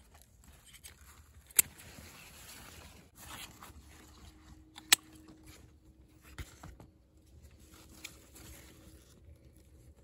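Hand pruning shears snipping eggplant stems: two sharp snips about one and a half seconds and five seconds in, with fainter clicks later and the rustle of leaves being handled between them.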